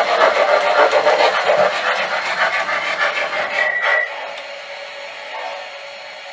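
O-gauge MTH Rail King Pennsylvania 2-8-0 model steam locomotive running with its Proto-Sound 2.0 steam chuffing and wheel noise on the track. A short high squeal comes just before it stops about four seconds in, and after that a quieter steady hum.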